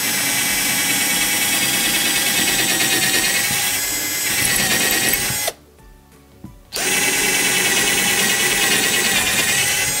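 Silverline cordless drill driver boring small 4 mm holes through oak, running at a steady high speed with a constant motor whine. It stops about five and a half seconds in and starts again just over a second later for the second hole.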